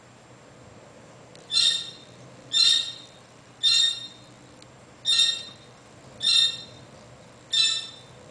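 Meyer's parrot calling off camera: six loud, high-pitched squawks, a little over a second apart, starting about one and a half seconds in.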